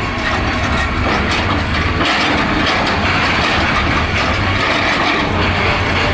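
Excavator working: its diesel engine runs steadily under a dense, continuous rattling work noise.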